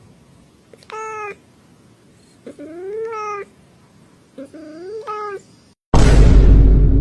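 A cat meowing three times, short calls that rise and fall in pitch. Near the end a sudden, much louder burst of noise cuts in and slowly fades.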